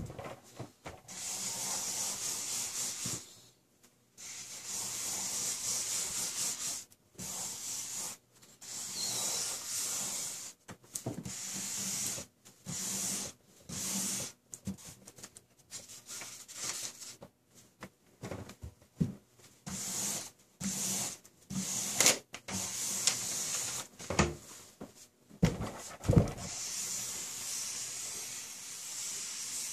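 Felt-tip markers, several held between the fingers of both hands, scribbling across a large paper pad: soft, hissy scratching strokes lasting from under a second to a few seconds, broken by short pauses. A few sharper taps and dull thumps of tips and hand against the paper come in the second half.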